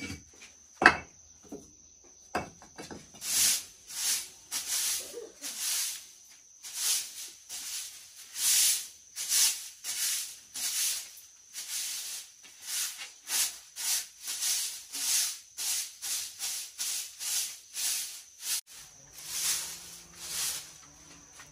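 Rhythmic dry swishing, rattling strokes, about two a second, with a sharp knock about a second in. A steady high insect trill sounds behind at the start and again near the end.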